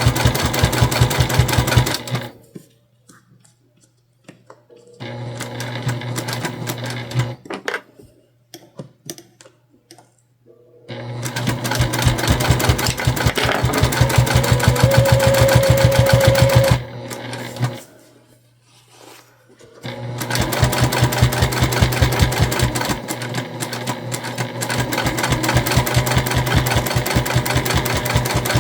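Sewing machine topstitching, running in four stretches of rapid, even needle strokes over a steady motor hum, stopping for a few seconds between stretches.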